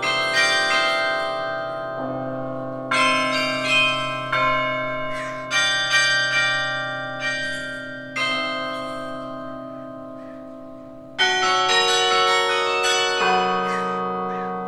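Carillon bells struck from the baton keyboard, playing a slow melody in chords. Each stroke rings on and dies away, with a long held ring about eight seconds in before a quicker group of notes and a low bell near the end.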